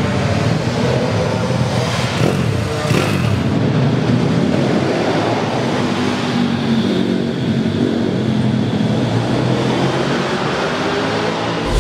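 Pit bike engines revving up and down as the bikes accelerate out of and slow into corners, the pitch rising and falling again and again.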